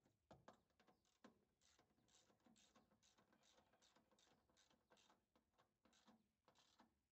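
Near silence with faint, irregular small clicks and ticks, a few a second.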